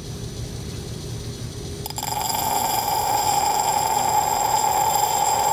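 Steady low machine hum; about two seconds in, a louder hiss and a thin high whine start suddenly and hold steady. This fits the Mercer grinding lathe running with its water feed.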